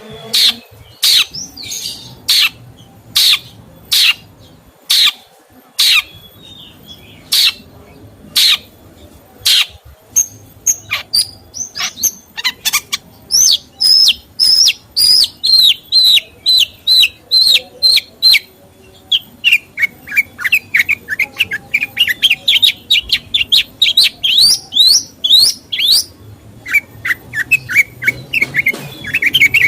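A songbird singing loud and close: sharp single notes about once a second, then fast runs of chirps and trills, one of them climbing steadily in pitch.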